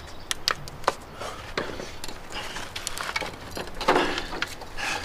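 Loose rock and gravel clicking and scraping under hands and boots as a person clambers down into a narrow rocky opening: scattered small knocks, with a louder scrape about four seconds in.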